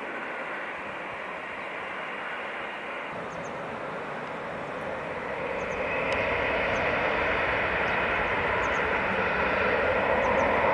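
Jet airliner's engines, a steady noise that grows louder about halfway through.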